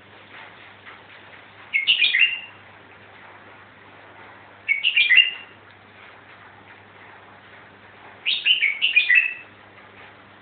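A young songbird, five months old, singing three short, rapid warbled phrases about three seconds apart.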